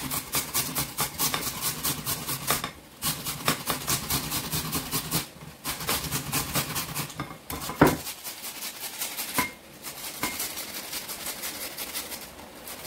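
Tomato rubbed back and forth across a flat stainless steel hand grater resting on a ceramic bowl: quick rhythmic scraping strokes in runs broken by short pauses. A single sharp knock comes about eight seconds in, after which the scraping is lighter and sparser.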